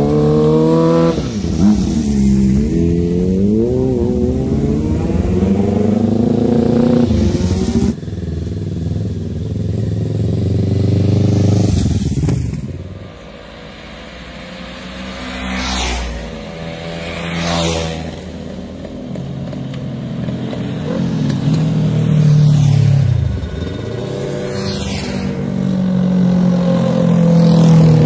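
Sport motorcycle engines revving and accelerating, then several bikes passing by in turn, each engine note dropping in pitch as it goes past. Another bike's engine grows loud near the end.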